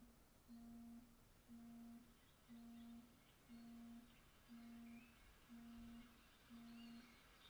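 A faint low tone pulsing on and off about once a second, each pulse about half a second long. Faint bird-like chirps come in during the second half.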